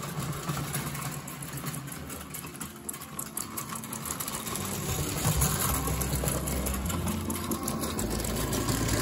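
Märklin R4910 Gauge 0 live-steam model locomotive running on its metal track with a fast, steady mechanical clatter, growing louder about halfway through as it comes close.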